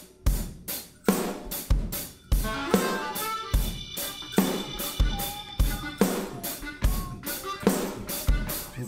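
Instrumental background music with a drum kit keeping a steady beat.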